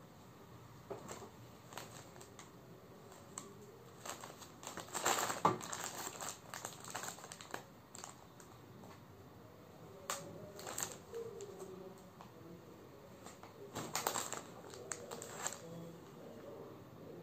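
Dark cloth garments being handled and folded on a plastic-covered counter: fabric rustling and plastic crinkling in irregular bursts, the loudest about a third of the way in and more again later.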